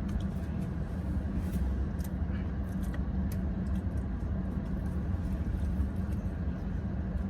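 Steady low rumble of a car cabin with the engine idling and the air conditioning blowing, with a few faint clicks.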